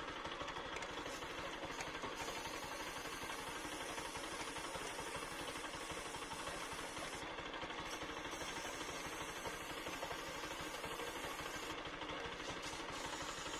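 Motorcycle engine idling steadily in gear, turning the rear wheel and chain so the chain can be lubricated.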